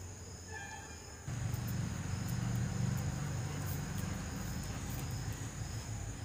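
Insects chirring steadily in a high, thin buzz, with a faint short bird call within the first second. A low rumble comes in about a second in and carries on underneath.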